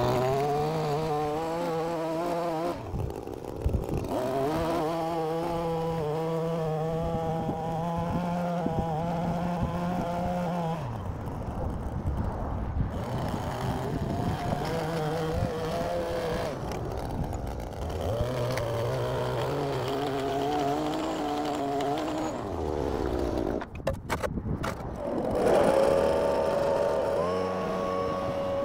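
Gas string trimmer's small two-stroke engine revving and dropping back to idle over and over while edging along a sidewalk. Near the end a backpack leaf blower's engine takes over, louder and at a steadier pitch.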